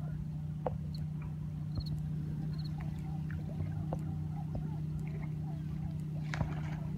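Water lapping and splashing at a rocky shoreline, with scattered small sharp splashes at the surface, over a steady low hum. The loudest splash is about six seconds in.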